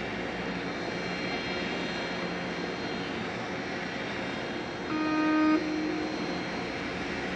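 Car ferry's engines droning steadily, with one short horn blast a little under a second long about five seconds in.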